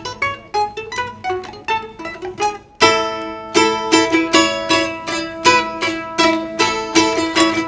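Two balalaikas playing a duet: a quick picked melody of single notes, then about three seconds in a loud strummed chord opens a fuller, louder passage of rapid notes.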